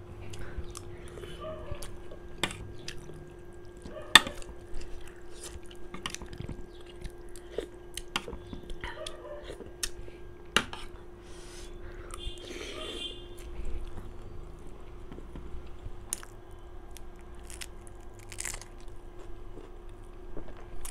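Close-up eating sounds: chewing and biting steamed momo dumplings, with sharp clicks of a metal spoon against a plate every few seconds, the loudest about four seconds in. A faint steady hum runs underneath.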